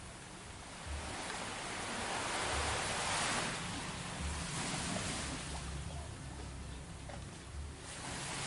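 Sea waves washing in on the shore, swelling and fading in slow surges, with short low rumbles of wind on the microphone.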